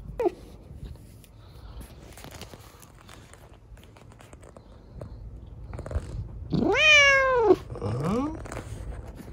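A cat meowing: a brief falling mew right at the start, then about seven seconds in one long, loud meow that rises and falls, followed at once by a shorter rising mew.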